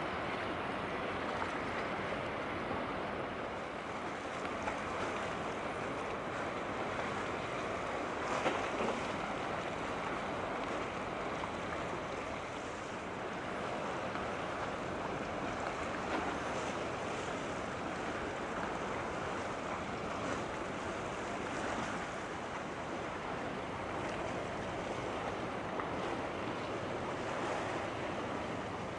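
Steady rush of sea water and waves, with wind on the microphone.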